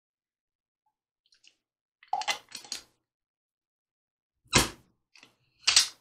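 Red double-lever hand corker at work on a glass wine bottle: a cluster of clicks and knocks about two seconds in as it is fitted over the bottle neck. Near the end come two loud, short sounds about a second apart as the levers drive the cork in and the corker comes off.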